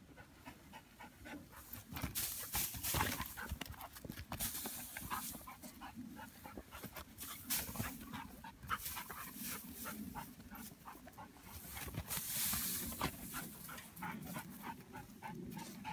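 Dog panting as it tears at and scatters loose hay, with the dry hay rustling and crackling irregularly.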